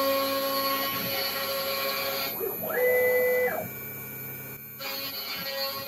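CNC router's stepper motors whining as the spindle head moves, over a steady machine hum: about two seconds in the pitch rises, holds for under a second, then falls away as the move ends.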